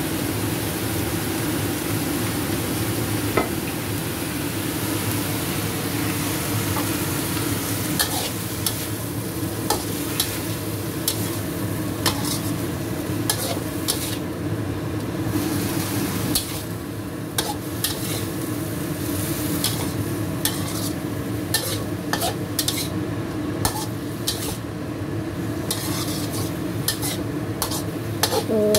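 Vegetables sizzling in a wok while a spatula stirs and tosses them, scraping and knocking against the pan, over a steady low hum. The knocks become frequent and irregular from about eight seconds in.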